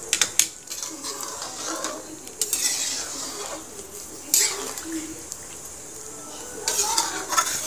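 Metal spatula scraping and clanking against a metal kadhai as thick chicken curry is stirred, in several separate bouts of stirring.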